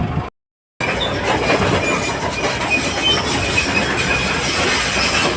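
JCB 205 tracked excavator's steel tracks and undercarriage clanking and squealing as the machine moves, with a brief cut to silence just after the start.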